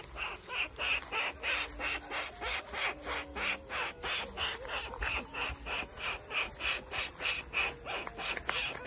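Rhythmic calling of a night animal: an even train of short chirps, about three to four a second, over a steady high hiss.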